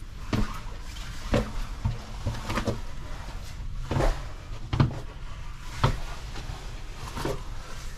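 Footsteps on a narrow brick spiral staircase: separate knocking steps, unevenly spaced at about one a second, over a low rumble.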